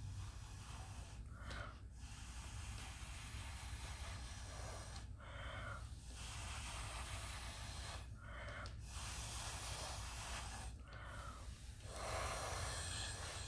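Breath blown hard through a drinking straw in several long puffs, each lasting a couple of seconds, with brief breaks between them. The air is pushing wet epoxy resin across a board to form wave shapes.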